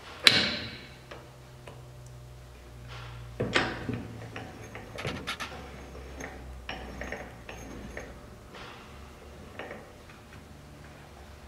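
Metallic clacks and clicks from the shift mechanism of an open 2015 Polaris Scrambler 1000 transmission as the shift lever is worked by hand through the gears. A sharp clack that rings briefly comes just after the start, a second clack about three and a half seconds in, then a run of lighter clicks. This is a test that it shifts into every gear before the case is closed.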